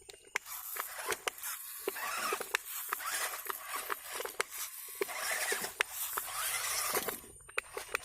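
Scratchy crunching and scraping with many small irregular clicks, typical of an RC rock crawler's tyres working over dirt, gravel and rocks.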